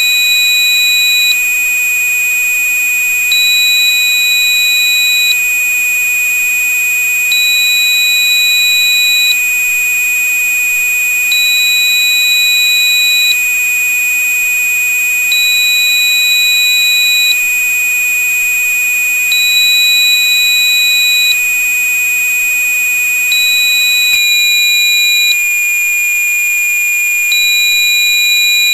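Electronically generated sine-wave tone held steady at about 2480 Hz, stepping down to about 2435 Hz roughly 24 seconds in. A higher beep sounds for about two seconds in every four, over fainter steady high tones.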